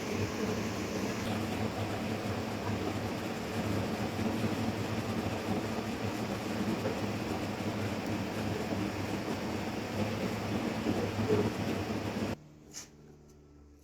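A woodworking power tool running steadily with a low hum, cutting off suddenly near the end, followed by a few faint clicks.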